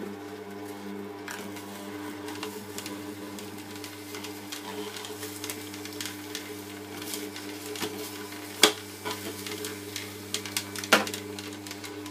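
Foodmatic horizontal slow juicer's motor running steadily with a low hum as its auger grinds frozen banana into soft-serve, with scattered clicks and two sharp knocks in the second half.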